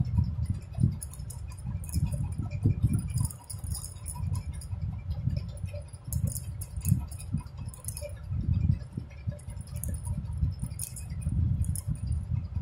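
Hands crocheting yarn with a metal crochet hook close to the microphone: scattered light clicks and rustles over an uneven low rumble.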